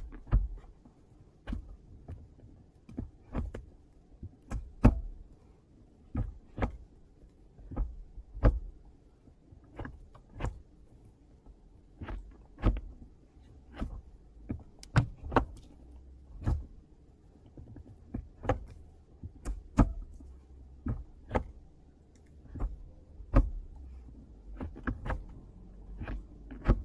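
Gear lever of a 2006 BMW 130i E87's manual gearbox, fitted with a BMW Performance short shifter kit, being shifted through the gears: a long run of crisp shift clicks, often in quick pairs, about one or two a second, over a faint low hum.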